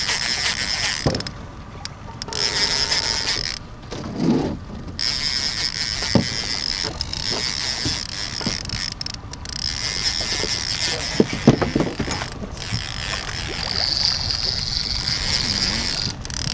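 Heavy trolling reel being cranked, a mechanical whirring with scattered clicks, as a snagged paddlefish is reeled in against a bent rod. Wind-driven waves slap against the boat hull.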